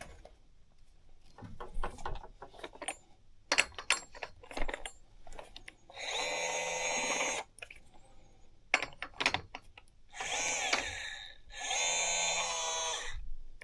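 Small power-tool motor running in three short bursts of about a second each, about halfway through and near the end, the middle one rising and falling in pitch. Clicks and knocks from handling the tool come before the bursts.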